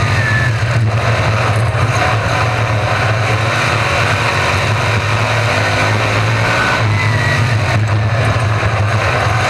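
Several RaceSaver 305 sprint cars' V8 engines running at racing speed, a loud, steady mix of engine noise with brief rising and falling pitches as cars go by.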